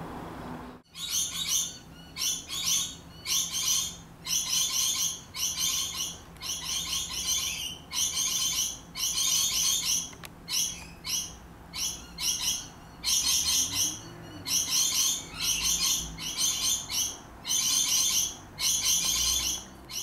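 High-pitched bird chirping in short trilled bursts, repeated evenly about three times every two seconds, starting abruptly about a second in.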